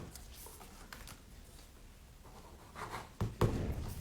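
Quiet room with faint scattered taps and rustles, and a short soft thump a little over three seconds in.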